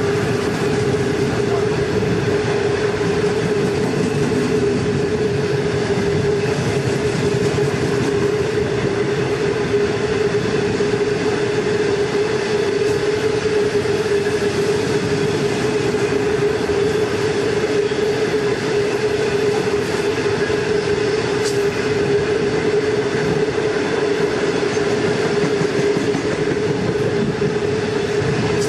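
Long freight train running on the track: the steady rolling noise of wagon wheels on rail, with a steady tone held over it.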